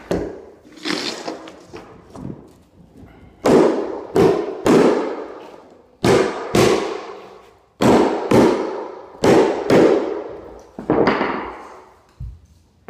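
Hammer blows nailing carpet tack strip down to a concrete floor. The blows come in quick pairs and threes with short pauses between them, and each rings briefly.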